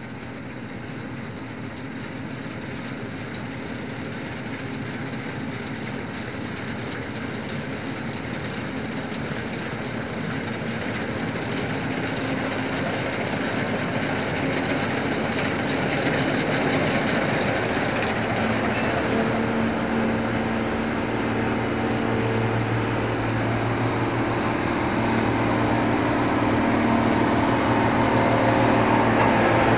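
Dronningborg 4500 combine harvester running while it harvests, its engine and threshing machinery growing steadily louder as it comes toward the listener. A steady engine hum stands out clearly over the last ten seconds as it draws close.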